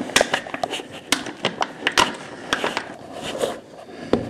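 A locksmith's thin plastic opening card being worked into the gap between a door and its frame: a rapid, irregular run of sharp clicks and scrapes.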